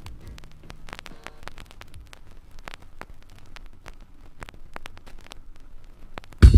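Vinyl record surface noise in a quiet stretch of groove: steady crackle and scattered pops over a faint hiss and hum. Near the end a loud drum hit starts the next track.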